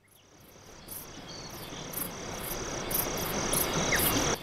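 Crickets chirping in an even rhythm, about two to three chirps a second, over a hissing background noise that fades in and swells steadily louder.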